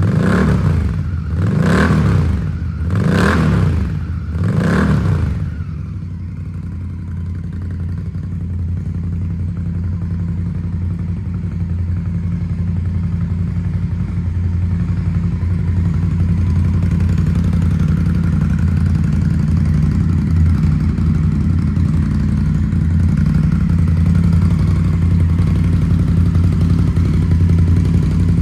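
Indian Scout Bobber V-twin engine with aftermarket shotgun exhaust pipes, blipped through several quick revs in the first five seconds and then settling to a steady idle.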